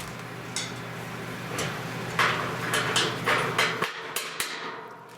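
A string of sharp knocks and clanks, about eight in all, loudest about two seconds in, from parts and tools being handled during bolt-together assembly.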